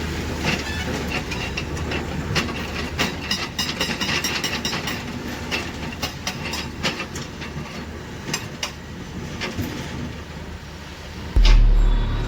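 Tata 470 excavator running in a quarry, its engine humming under irregular sharp knocks and clatter. Near the end a much louder low rumble sets in suddenly.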